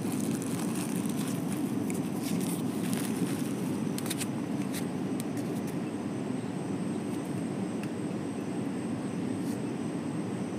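Steady rushing of a river flowing past rocks, an even low roar, with a few faint light ticks in the first half.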